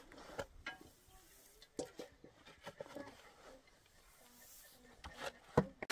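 Shovel scraping and turning soil in a metal wheelbarrow: scattered scrapes and knocks, with a sharper knock near the end and faint voices now and then.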